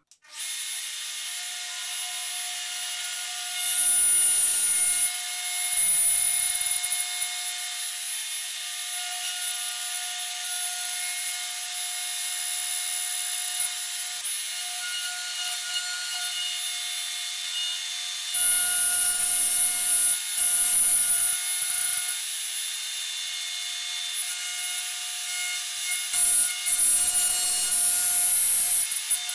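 DeWalt plunge router running with a steady high whine, its bit cutting into a plywood workpiece. The sound gets louder in several stretches as the bit bites, around four and six seconds in and again in the second half.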